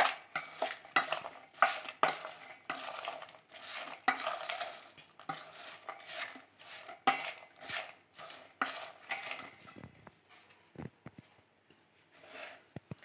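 A spatula stirs and tosses crispy fried corn kernels around a stainless-steel mixing bowl, scraping and rattling about twice a second. The stirring stops about ten seconds in, leaving a few light knocks.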